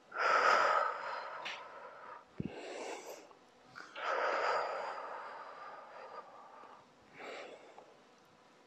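A woman breathing out hard during a shoulder-roll warm-up: two long, loud exhalations about four seconds apart, with softer breaths between them.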